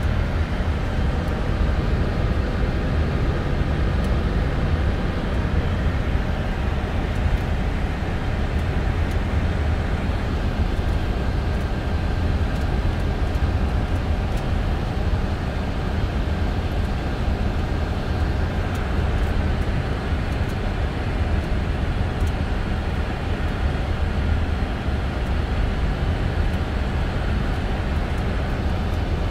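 Steady flight-deck noise of a Boeing 747-400 on approach: a constant rush of airflow and engine noise.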